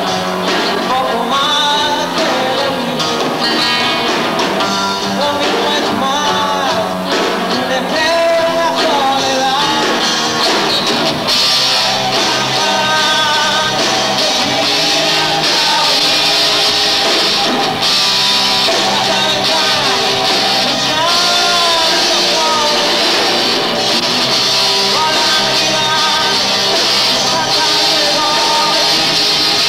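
Live rock band playing electric guitars, bass guitar and drums, with a male lead vocalist singing. About eleven seconds in the band gets fuller and brighter and stays that way.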